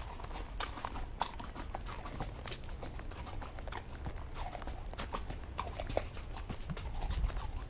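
A horse's hooves clopping on the trail in an irregular run of sharp knocks, over a steady low rumble.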